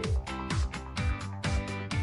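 Background music with a steady kick-drum beat, about two beats a second, with sharp percussion strokes between them.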